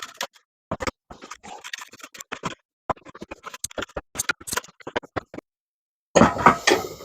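Hand drill bit turning against wood in short irregular scratchy strokes, marking the board through the holes of the clamped beam, with a louder rush of scraping near the end.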